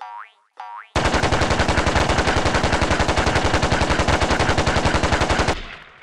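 Assault rifle firing one long automatic burst, about a dozen shots a second for roughly four and a half seconds, then dying away with an echo. It is preceded by two short sounds that rise in pitch.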